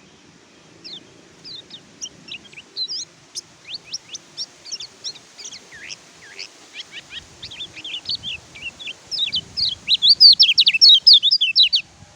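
Kecial kuning white-eye (pleci) singing: a fast, twittering stream of high, sweeping chirps that grows busier and louder, ending in a loud rapid burst that cuts off suddenly near the end.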